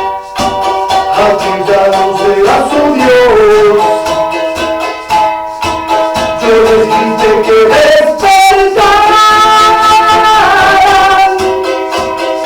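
Charango strummed in steady chords under a man's singing voice holding long notes of a slow ballad melody.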